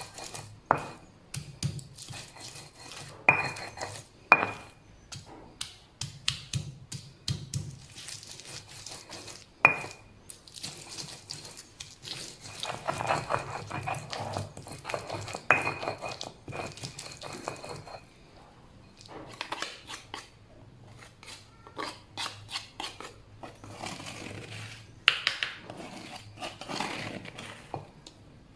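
Metal kitchenware clinking and knocking: a utensil striking a pot or dish at irregular intervals, several strikes ringing briefly.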